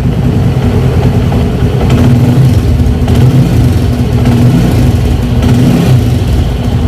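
TVS Radeon 110cc single-cylinder four-stroke motorcycle engine running on a freshly replaced timing chain, revved with the throttle: it rises about two seconds in and drops back near the end.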